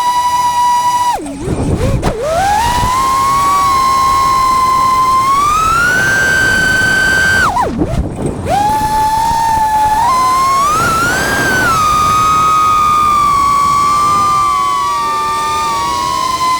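FPV racing quadcopter's brushless motors whining as it flies, the pitch sliding up and down with throttle. Twice the whine drops steeply as the throttle is chopped, about a second in and again about eight seconds in, then climbs back as it is punched.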